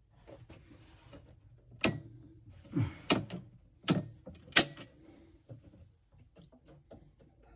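Sharp clicks and knocks of hands working on a consumer unit: four loud ones between about two and five seconds in, with lighter ticks in between.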